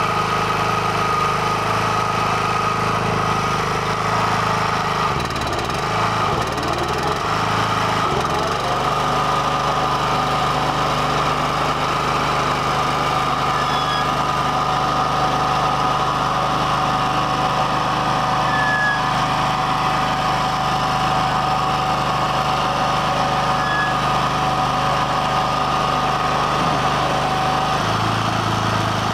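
A BCS walk-behind tractor's small engine runs steadily, driving a Caravaggi straw chopper/blower. The engine note dips and recovers about six seconds in, then holds at a new pitch, and shifts again near the end.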